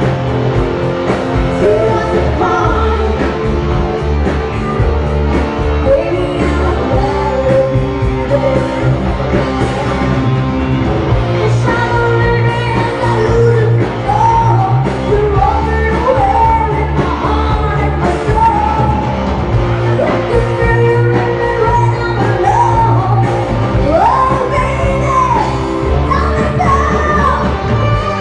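Live rock band playing, with a woman singing lead into a microphone over steady bass and drums.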